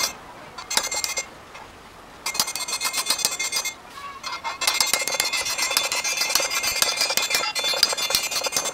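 Hammer rapidly striking 6 mm rebar against a steel I-beam, the metal ringing with each blow. The blows come in three runs with short pauses between, the last and longest filling the second half. The blows are bending the rebar into smooth curves.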